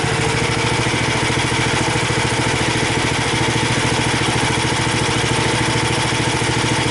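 Small engine of a homemade band sawmill idling steadily with a rapid, even firing beat.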